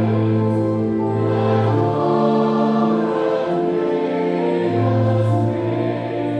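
Church choir singing a slow hymn in long held chords that change every second or two.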